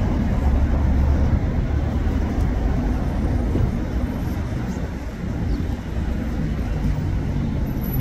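Steady city traffic noise: an even rumble of road vehicles, heaviest in the low end and a little stronger about half a second to a second and a half in.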